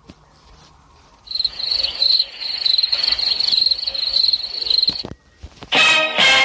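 Crickets chirping in a rapid, even trill for about four seconds, starting about a second in: the stock crickets sound effect used for an awkward silence. Near the end a loud sound with several stacked tones cuts in.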